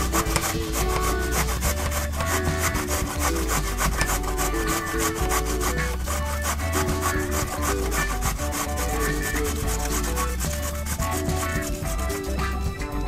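A carrot being grated on a stainless-steel box grater: rapid, repeated rasping strokes against the metal teeth, over background music.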